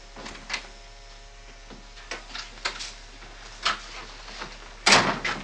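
Footsteps of several men walking in across a floor, irregular steps with a louder knock near the end, over a steady electrical hum.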